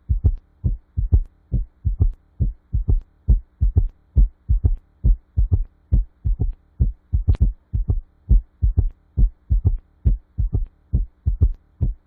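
Recorded heart sounds of an S3 gallop heard at the cardiac apex: low, short thuds falling into a repeating triple rhythm, a third heart sound following the first two in each beat. This is a left ventricular S3.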